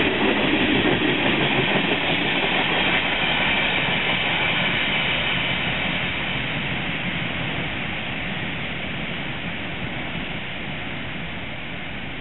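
Freight train of empty ballast hopper cars rolling by, a steady rumble of wheels on rail that slowly fades as the train moves away.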